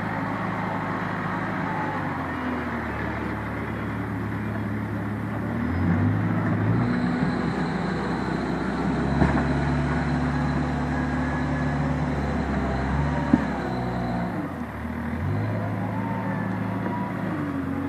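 JCB backhoe loader's diesel engine running steadily as the machine moves over the dirt, revving up about six seconds in, holding the higher revs, then dropping back near the end. Two short sharp knocks come during the higher revs.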